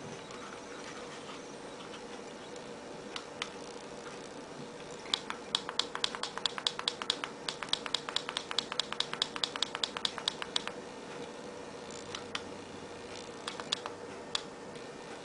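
Small tactile push-button on an LED pocket watch clicking as it is pressed repeatedly to step through the time settings: two clicks, then a fast run of about five clicks a second for around five seconds, then a few single clicks near the end.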